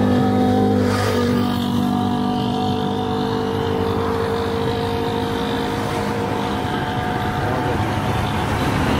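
A motor vehicle engine running steadily close by, its hum shifting slightly about a second in, with road noise underneath.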